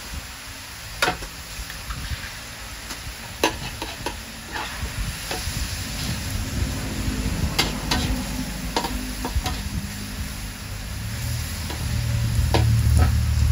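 Metal spatula scraping and clanking against a wok as rice noodles are stir-fried, over a steady sizzle. A vehicle engine's low rumble grows louder near the end.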